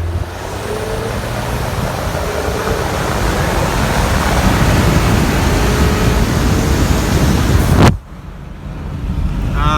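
2015 Ford Mustang EcoBoost's 2.3-litre turbocharged four-cylinder under hard acceleration, heard from inside the cabin as a loud rush of engine, road and wind noise building for about eight seconds. Near the end it drops off suddenly with a sharp click, then a quieter hum rises again.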